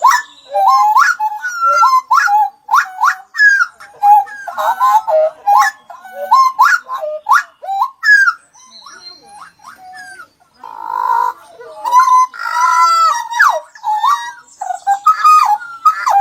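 Small songbirds singing a fast, varied song of loud whistled notes that swoop up and down, mixed with high chips and trills. About two-thirds of the way in comes a brief harsh, buzzy call.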